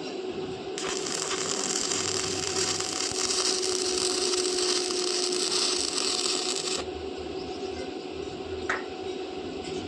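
Stick-welding arc crackling and sizzling for about six seconds, starting about a second in and stopping suddenly, followed by a single sharp click.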